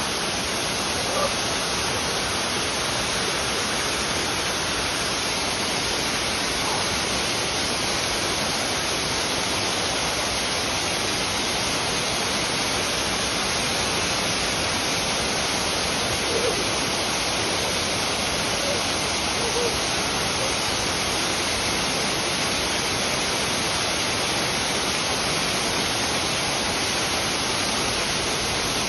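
Waterfall roar: a steady, even rush of falling water that does not change.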